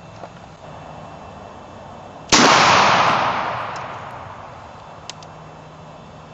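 A .50-calibre black powder percussion muzzleloader firing once, a little over two seconds in: a sharp report followed by a rumbling tail that dies away over about two seconds. It is the shot going off after a misfire was cleared and the rifle re-primed.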